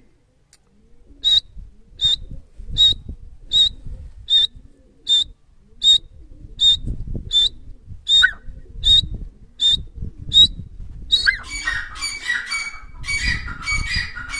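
Grey francolin calling: a run of short, sharp, high whistled notes, a little more than one a second. About eleven seconds in it gives way to a busier burst of overlapping calls.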